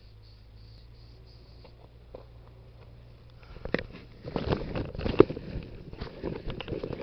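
Faint low hum with a few soft clicks, then, about halfway in, close rustling and crackling that grows busier and louder.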